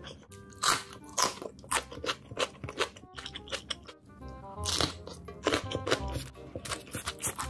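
Close-miked eating: crunching bites and chewing, then a slurp of black noodles about halfway through and crisp bites into a raw green chili pepper. Background music with a melody plays throughout.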